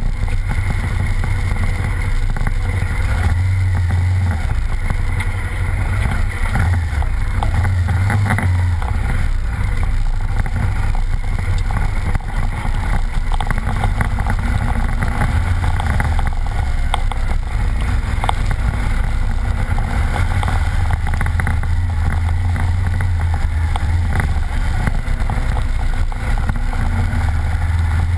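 Motorcycle engine running under way on a rough dirt track, its low note swelling and easing at times, with wind rushing over the microphone.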